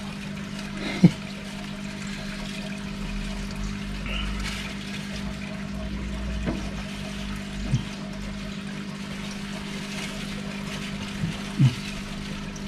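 Aquarium water bubbling and trickling over the steady hum of the tank's pump, as a hand and a plastic bag move through the water. A sharp knock comes about a second in, and a few brief, softer sounds follow later.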